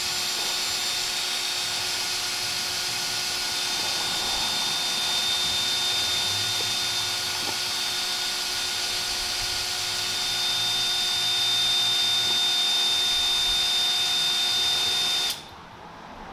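Cordless drill running at a steady speed with a high, even whine, drilling into a broken exhaust manifold bolt snapped off flush in the cylinder head; it stops suddenly near the end.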